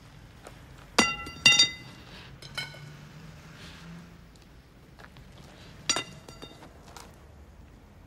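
A few sharp, ringing clinks, as of hard objects knocked together: two loud ones about a second in, a fainter one a second later, and another loud one near six seconds.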